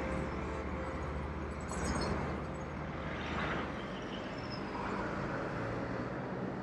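Road traffic passing: cars and a semi-trailer truck going by one after another, with tyre noise and a low engine rumble that eases off about four seconds in.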